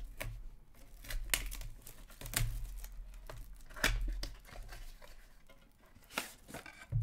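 Clear plastic shrink-wrap being torn and crinkled off a 2014-15 Upper Deck Premier hockey card box, in irregular crackles and rips.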